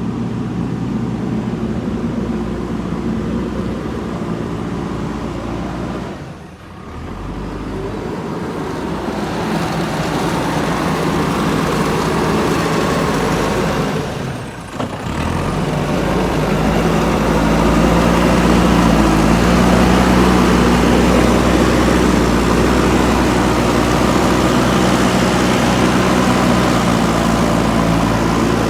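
Diesel engine of a JCB 3DX backhoe loader running steadily, dipping briefly twice, then running louder through the second half.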